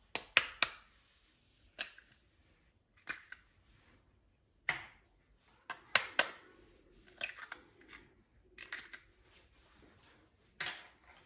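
Two eggshells being tapped and broken open: a series of short, sharp cracks and clicks in small clusters, with quiet in between.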